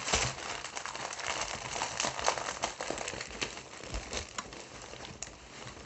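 A large diamond-painting canvas and its paper and plastic-film backing being handled and rolled up: continuous crinkling and rustling of stiff sheets, loudest in the first second or so.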